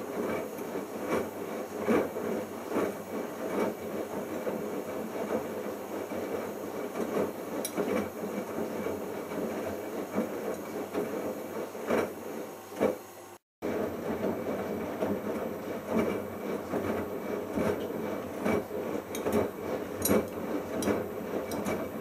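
Bosch Logixx WAS32461 washing machine in its main wash: the drum turning and tumbling a small wet load of shirts, a steady churning with irregular soft knocks. The sound breaks off for a moment about thirteen seconds in, then goes on as before.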